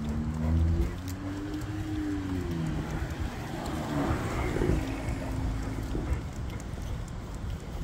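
A car driving past: an engine note shifting in pitch over the first couple of seconds, then a swell of tyre noise that peaks about four to five seconds in and fades.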